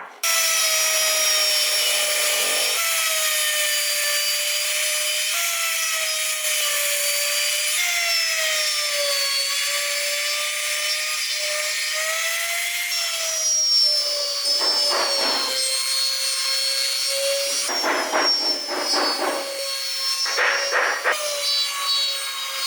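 A small high-speed electric power tool running on wood with a steady whine whose pitch dips and recovers slightly. It breaks into rougher grinding three times in the second half as it bites into the wood.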